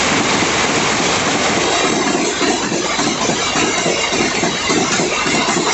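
Empty freight box wagons rolling past close by: the steady, loud noise of steel wheels running on the rails.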